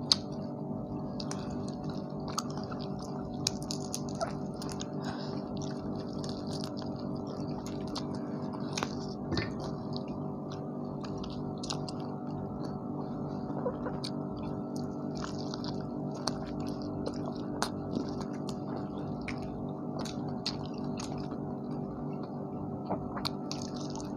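People chewing and tearing into roast tandoori chicken, with scattered small clicks and crackles of eating, over a steady low hum.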